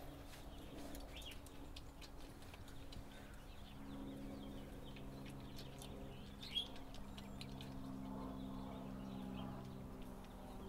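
Basset hound puppies nursing: faint high squeaks and small wet suckling clicks over a low steady hum, with one sharper click about six and a half seconds in.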